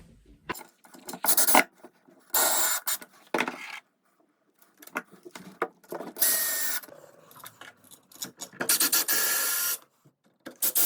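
Tools and metal parts scraping and rubbing at the cistern's ball valve in short, irregular bursts while its washer is changed.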